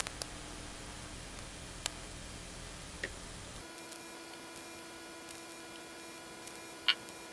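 Quiet room tone with a steady hiss and a few faint, isolated clicks, the sharpest about seven seconds in. The low hum drops out abruptly about three and a half seconds in.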